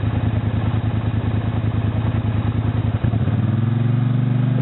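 ATV engine running at a steady low speed, then revving up about three seconds in, its pitch climbing. This is a quad stuck in soft mud trying to drive out.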